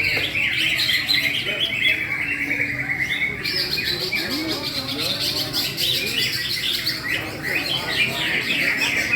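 Cucak ijo (green leafbird) singing a loud, continuous run of rapid chirps and trills, dense and overlapping.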